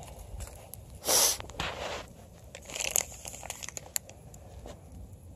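Rustling and crinkling handling noises with scattered clicks, and two louder brief scuffs about one second and three seconds in.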